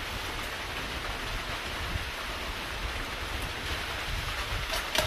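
Light rain falling, a steady even hiss, with a few faint clicks near the end.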